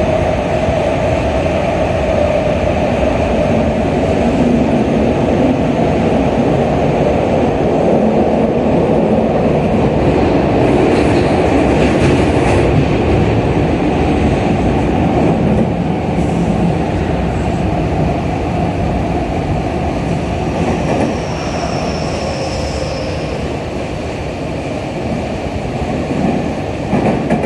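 Tokyu 5000-series electric train running through a subway tunnel, heard from inside the passenger car: a steady loud rumble of wheels, rails and tunnel. A brief thin high squeal comes in a little past twenty seconds, and the sound eases somewhat toward the end.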